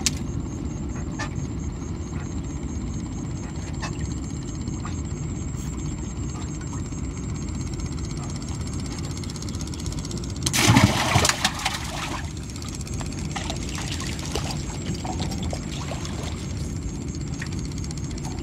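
Steady low rumble, with one loud splash of water about ten seconds in, lasting a little over a second, as the gill net is hauled from the river.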